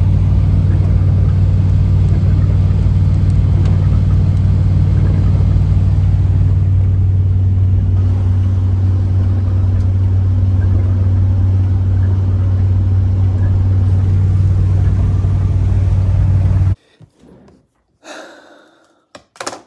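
Steady low rumble of a vehicle driving at highway speed, heard from inside the cab: engine drone and road noise together. It cuts off suddenly near the end, and a few faint knocks follow.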